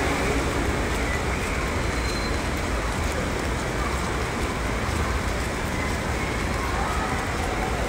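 Steady rain falling on a wet stone courtyard, an even hiss with a low rumble underneath.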